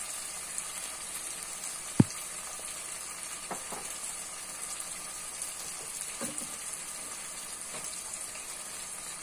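Chopped onions, garlic and tomatoes frying in sesame oil in a kadai over a gas flame, a steady sizzle. A single sharp click comes about two seconds in.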